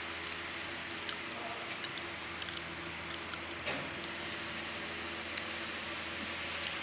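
Quiet room tone with a steady low hum, broken by scattered faint clicks and a few brief high chirps.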